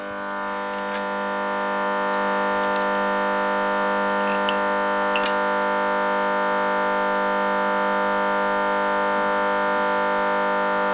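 A steady machine drone of several held tones that swells over the first two seconds and then holds even, with a few faint clicks about four and five seconds in.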